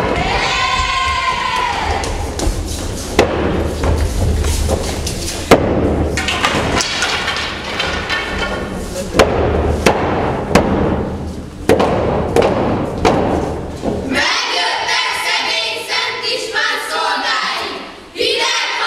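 Wooden staffs thumped repeatedly on a stage floor in a regölés folk performance, with a group of boys' voices shouting and chanting over the knocks. About 14 seconds in the thumping stops and the group chants together.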